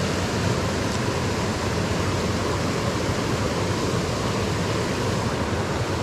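Small rocky creek rushing over stones in a riffle: a steady, even wash of water.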